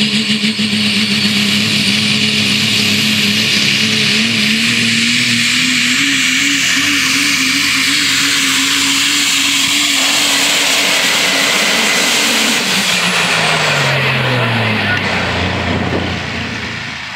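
Super stock diesel 4x4 pulling truck, a Ford Super Duty, run at full throttle while dragging the sled, its engine note creeping up and then holding. About thirteen seconds in the engine winds down steadily as the pull ends.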